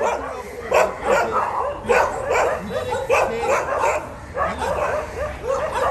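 Several dogs barking in quick, overlapping volleys, several barks a second, with a few louder sharp barks among them.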